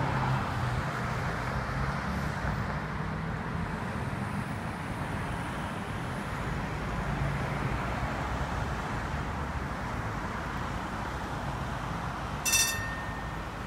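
Steady rush of road traffic from cars passing on the adjacent road, with a low hum underneath. Near the end, a short sharp high-pitched tone sounds once.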